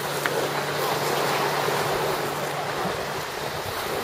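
Lake waves breaking and washing onto the beach in a steady rush, with wind buffeting the microphone.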